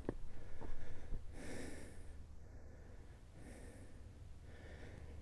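A hiker breathing hard while climbing a steep trail, with three heavy breaths about a second or two apart. A few short knocks fall in the first second.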